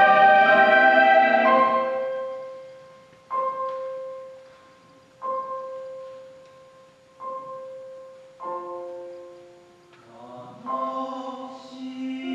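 A choir's held chord fades out, then a piano strikes a note in octaves four times about two seconds apart, each ringing and dying away, the last with a fuller chord. Near the end the choir sings again over the piano.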